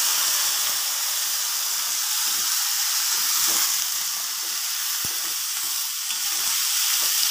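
Freshly washed, chopped vegetables sizzling steadily in hot oil in a steel kadai as they are stirred with a long spatula.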